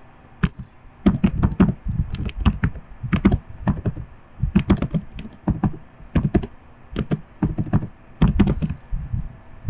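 Typing on a computer keyboard: clacking keystrokes in quick runs with short pauses in between.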